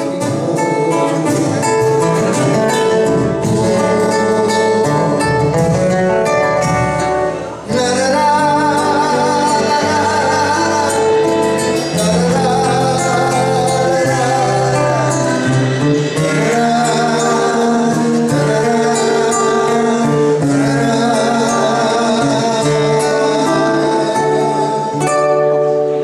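Live Argentine folk song: a man singing with wavering held notes over two acoustic guitars, with a brief drop in the music about seven and a half seconds in.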